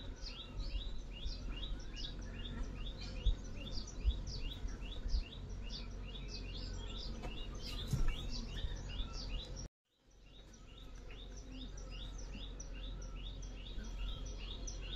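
A bird calling over and over, a short high chirp sweeping downward about three times a second, over a low steady background rumble. The sound cuts out for a moment about ten seconds in, then the chirping carries on.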